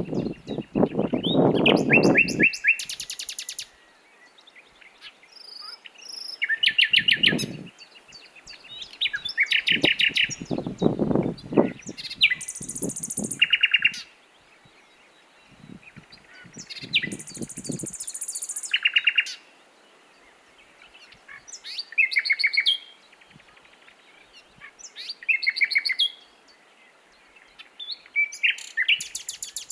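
Common nightingale singing: a string of varied phrases a few seconds apart, built of fast repeated notes and whistles, several with a deep, loud rattle, separated by short pauses.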